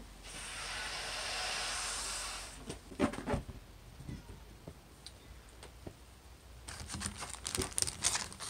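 Breath blown steadily into a latex balloon for about two seconds, an airy rush, followed about three seconds in by a couple of sharp knocks as the balloon is handled. Near the end comes a short run of crackly rustling and clicking from hands on the balloon and clothing.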